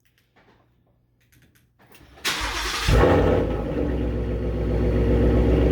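2019 Ford Mustang GT's 5.0-litre V8 cranking over and starting about two seconds in, flaring briefly and then settling into a steady idle. This is its first start with a newly fitted Roush X-pipe, which deletes the factory resonator, feeding a Roush axle-back exhaust.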